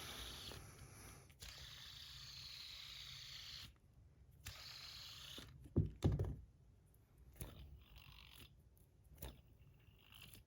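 Tungsten fidget spinner spinning on its bearing with a steady hissing whir that stops and briefly resumes, followed by a couple of sharp knocks from handling it about six seconds in and a few light clicks.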